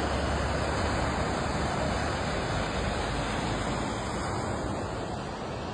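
Swollen snowmelt river in flood, its fast brown water rushing in a steady wash of noise.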